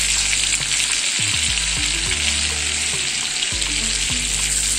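Cumin seeds and a bay leaf sizzling steadily in hot ghee and butter in a metal kadhai: the tadka (tempering) stage. A slotted metal spoon stirs them near the end.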